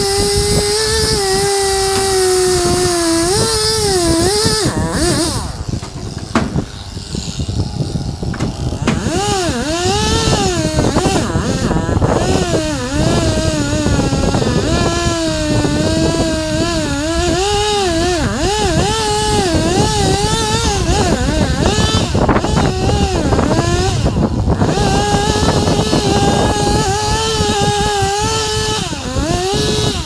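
Chainsaw cutting a maple stump, its engine pitch sagging under load in the wood and rising again as it revs free. It eases off for a few seconds about six seconds in, then carries on cutting.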